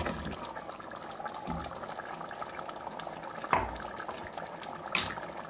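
Beef and turnip curry bubbling in a cooking pot as turnip chunks drop into the gravy, with a few soft knocks.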